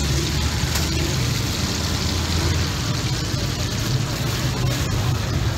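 Steady low engine hum of street traffic, with the hiss of a pan of hot oil frying over it.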